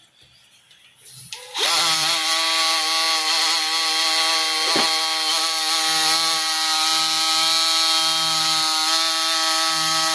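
A power tool with a sanding disc starts about a second and a half in and runs steadily with a constant whine. It is sanding burnt-oil deposits off the face of a 1986 Nissan 300ZX flywheel.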